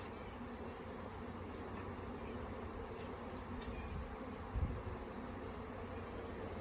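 Honey bee swarm buzzing steadily, many bees flying around the cluster. A brief low thump about four and a half seconds in.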